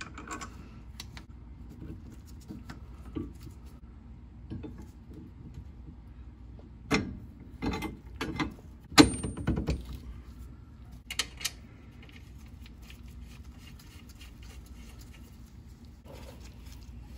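Scattered metallic clinks and knocks from hand tools and steel suspension parts being handled on a car's rear leaf spring and U-bolt mounting, with the loudest knocks about 7, 9 and 11 seconds in, one with a brief high ring.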